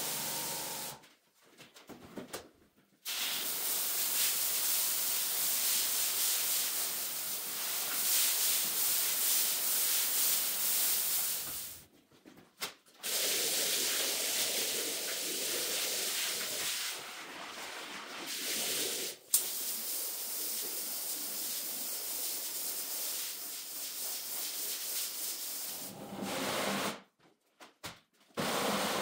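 High-pressure washer jet spraying water onto a soaped rug: a steady hiss, cut off by brief silences about three times.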